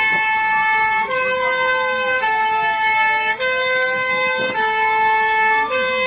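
Electronic emergency-alert alarm: a steady chord of tones that switches back and forth between two pitches about once a second, over a siren-like tone that slides slowly down and then back up.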